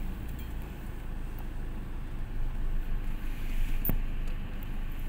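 Car driving slowly, its engine and road rumble heard from inside the closed cabin as a steady low drone. A single short click about four seconds in.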